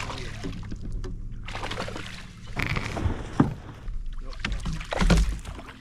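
A hooked bass splashing and thrashing at the water's surface beside a fishing kayak as it is reeled in, with rustling and knocks from the angler and gear on the kayak: a sharp knock about halfway through and a heavy low thump near the end.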